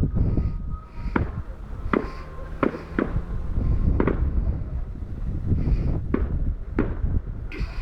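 Fireworks display heard from a distance: irregular sharp bangs and cracks, roughly one a second, over wind rumbling on the microphone.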